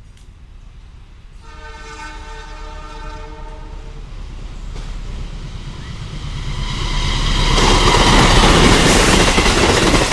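Argo Muria express passenger train sounding its horn, a chord of several steady tones held for about two and a half seconds. It then approaches and rushes past at speed, the noise of wheels on rails rising until it is loud as the carriages go by.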